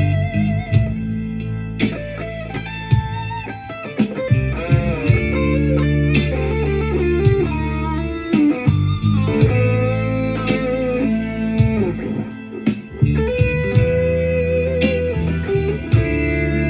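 Cort G300 Pro electric guitar playing blues lead lines with bent notes, over a blues backing with sustained bass notes and a steady beat.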